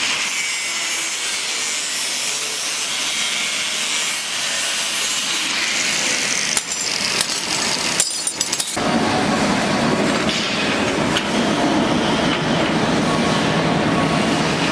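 Metal being cut with a power tool: a continuous, hissy cutting noise. About seven seconds in it breaks off into a few clicks, then resumes fuller and lower-pitched.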